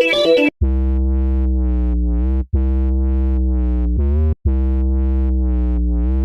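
Electronic music on synthesizers: a busy run of notes stops about half a second in, giving way to a held synth chord over steady bass, which drops out briefly about every two seconds.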